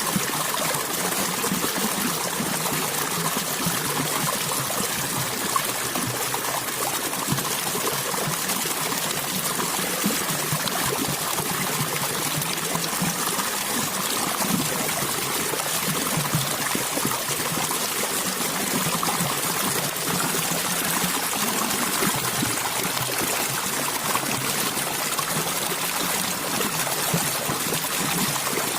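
Water flowing and trickling steadily, an even splashing rush.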